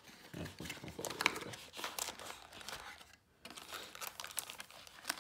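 Crinkling crackle of a 2019-20 Panini Prizm basketball retail pack's plastic-foil wrapper being handled as it is taken from the box, with a brief pause about three seconds in.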